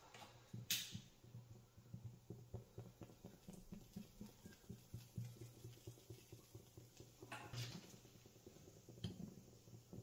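Faint, irregular fluttering of the alcohol flames burning in a cast iron spirit stove's burner, with a sharp click about a second in and a metal clink near the end as a cast iron plate is set down on the stove.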